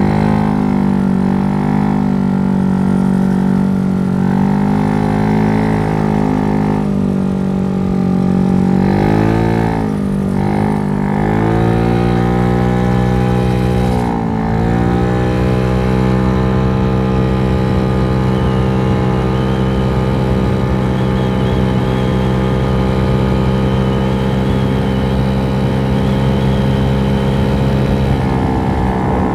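GY6 four-stroke single-cylinder scooter engine, bored out to 88cc, running at steady high revs under way, with two brief drops in pitch about ten and fourteen seconds in before it climbs back up and holds. The revs sit high because the Polini variator's 6.9 g rollers are too light: the rider says the RPMs are too high and need heavier rollers.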